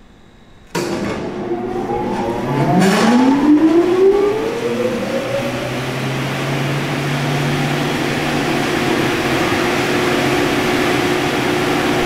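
Tannewitz GH 36-inch bandsaw's 5-horsepower direct-drive motor switched on and spinning up. Its whine rises in pitch over about four seconds, then it settles into a steady, quiet hum at running speed.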